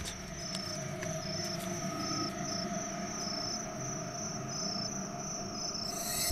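Crickets chirping at night: short, high chirps repeating about twice a second over a steady, fainter hum.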